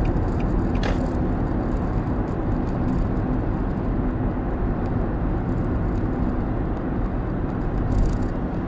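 Steady road and engine noise of a car cruising on an expressway, heard inside the cabin, with a short click about a second in.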